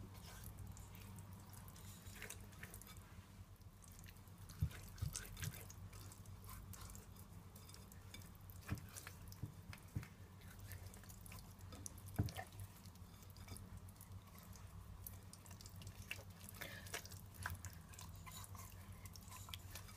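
Faint wet squelches and small clicks of bare hands rubbing oily jerk seasoning into whole tilapia in a glass dish, over a low steady hum.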